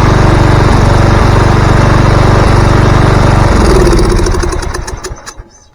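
Craftsman lawn mower engine running steadily, then shut off about three and a half seconds in and coasting down to a stop over the next two seconds, with a few pops as it dies. The engine has just had a valve seat repaired and, to the owner's ear, doesn't sound right, with a little whistle he thinks might come from the exhaust.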